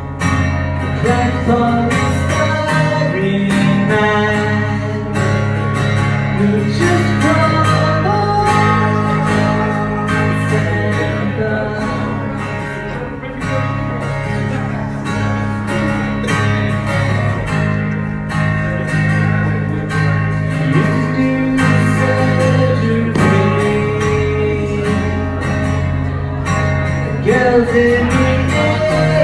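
Acoustic guitar strummed in a steady rhythm, with a voice singing over it: a live acoustic song.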